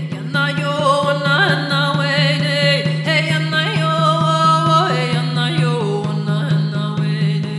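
A woman chanting a medicine song, her voice sliding between held notes, over a steady beat on a frame drum struck with a padded beater.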